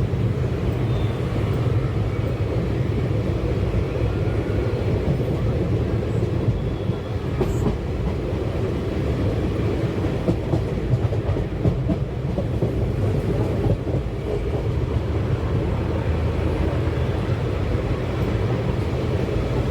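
Train wheels running steadily on the track, a continuous low rumble with some clickety-clack, heard from aboard a moving passenger train.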